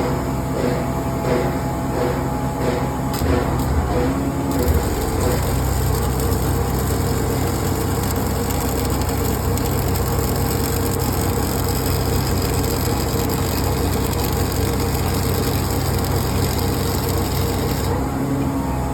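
Electric arc welding: a steady crackling and sizzling over the hum of the welding set, from about four seconds in until near the end. Before and after that, the machine hums with a pulsing beat of about two to three a second.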